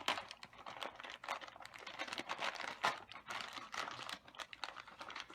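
Plastic packaging crinkling and rustling as a boxed collectible figure is unwrapped, with many irregular sharp crackles.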